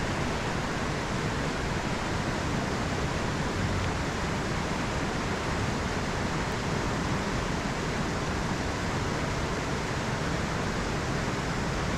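Creek water rushing steadily over riffles, an even unbroken rush.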